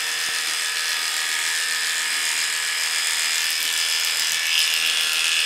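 Cordless dog grooming clippers with a number 10 blade running with a steady buzz as they shave the curly coat on a poodle's face.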